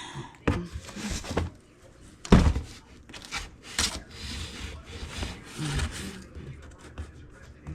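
Cardboard boxes and packing being handled and shifted, with irregular rubbing and scraping and a thump about two seconds in.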